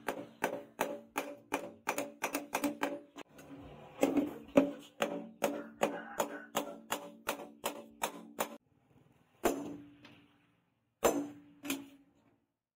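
Hand hammer forging a red-hot leaf-spring steel cleaver blade on a steel anvil post: quick blows, about three a second, each with a short metallic ring. After a brief pause a little past three seconds the hammering resumes, then stops; near the end come only three single blows.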